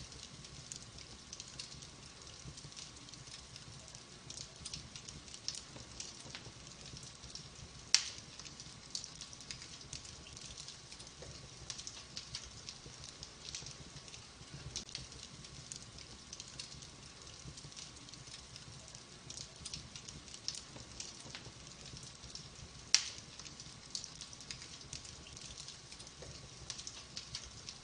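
Wood fire in a fireplace crackling: a steady patter of small snaps over a soft hiss, with two sharp, much louder pops, one about eight seconds in and another some fifteen seconds later.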